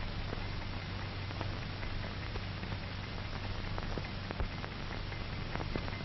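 Surface noise of an old film soundtrack: steady hiss with a low hum and scattered crackling clicks, no speech or music.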